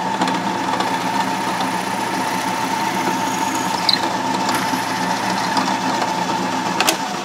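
Drill press running steadily with its bit boring down into a wooden block, a steady motor whine with a steady hum beneath. A click near the end.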